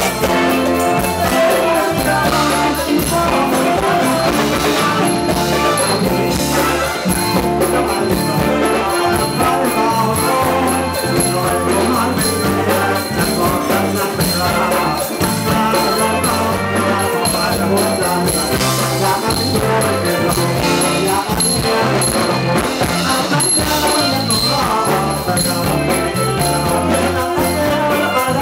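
A band playing loud, continuous Thai ramwong-style dance music with a steady beat.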